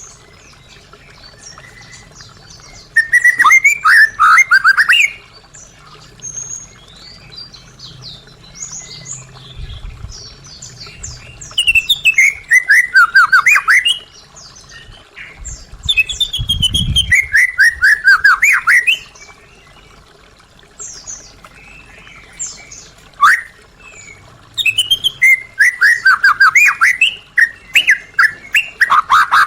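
White-rumped shama (murai batu) singing in loud phrases of rapid, repeated falling notes, each two to three seconds long and four in all, with fainter notes in the gaps between them.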